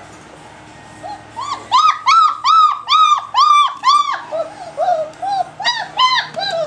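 Three-week-old German Shepherd puppy crying: a run of loud, high-pitched whines, about three a second, starting about a second and a half in, then softer, lower whimpers and another short burst of cries near the end.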